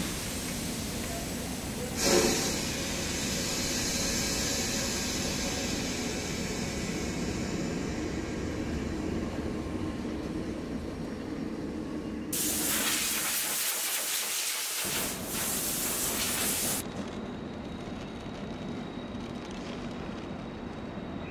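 Steam locomotive sound: a steady rumble with a sudden burst of steam hiss about two seconds in that fades away, then a louder hiss of escaping steam from about twelve seconds in that cuts off suddenly some four seconds later.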